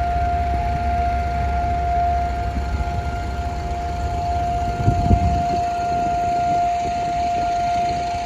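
Civil defense siren sounding the Holocaust Remembrance Day memorial siren: one long, steady, unwavering tone. A low rumble runs underneath, with a brief louder rumble about five seconds in.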